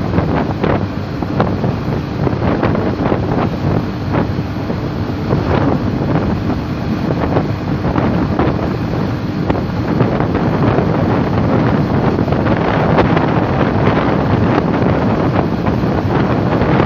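Strong wind buffeting the microphone of a moving motorcycle at highway speed, a constant rushing rumble with gusty thumps. The engine's steady drone runs underneath.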